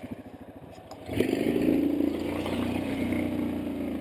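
Off-road vehicle's engine chugging at low revs, then revving up about a second in and holding at higher revs.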